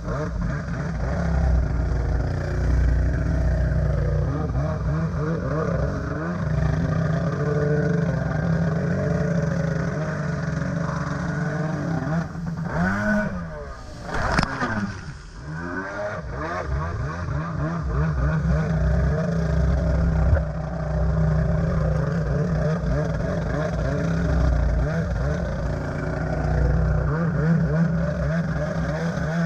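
Stand-up jet ski's two-stroke engine running hard, its pitch rising and falling with the throttle, over the rush of water. About halfway through the engine note swoops up and then drops away while spray washes over the hood, then it revs back up.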